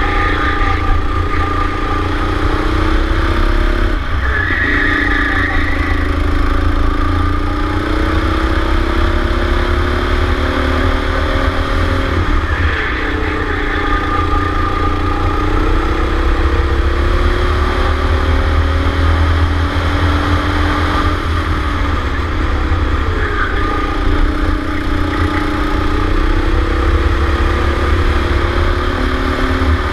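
Go-kart engine heard from onboard, its pitch climbing steadily as it accelerates down each straight and dropping sharply when the throttle is lifted for a corner, about four times. A low rumble of wind on the microphone runs under it.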